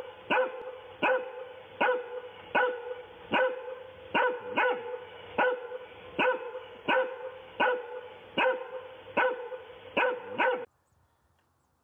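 A shaggy dog barking over and over, about fifteen sharp barks at a little over one a second, with a steady tone running underneath; the barking cuts off suddenly near the end.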